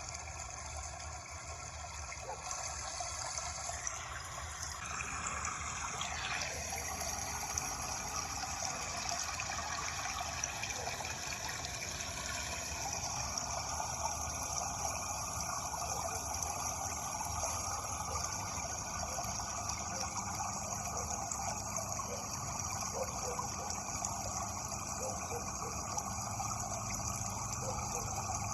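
Steady flowing water, a continuous even wash of sound whose tone shifts a few seconds in and again near the middle.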